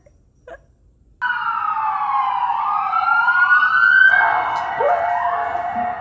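Emergency vehicle sirens wailing, several overlapping tones sweeping up and down, starting suddenly about a second in and turning to a steadier tone about four seconds in, with a dog howling along to them.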